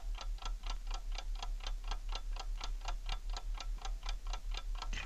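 Wind-up alarm clock ticking steadily, about four ticks a second. It is a cartoon sound effect of the clock's ticking heard through a stethoscope pressed against it.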